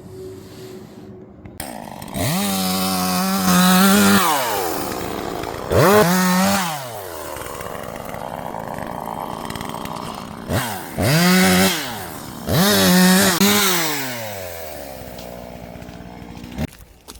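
Two-stroke chainsaw revved to full speed four times, its engine note climbing high and falling back to idle in between, then cut off near the end.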